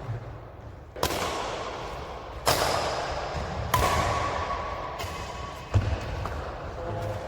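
A series of about five sharp bangs spaced a second or so apart, each ringing out for a second or more before the next.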